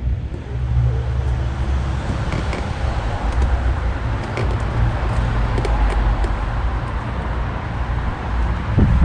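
Steady low rumble of a motor vehicle running nearby, with a few faint light clicks.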